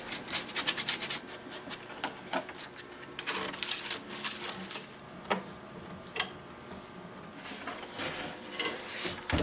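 Metal tools tapping and scraping on a veneered wooden drawer front while glue is worked under loose veneer: a quick run of light clicks in the first second, then scattered scrapes and ticks.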